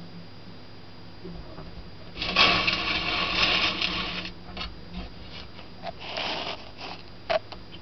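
A rapid scratching clatter on a hard surface lasts about two seconds. It is followed by scattered clicks, a shorter scratching burst and a single sharp click, over a low steady hum.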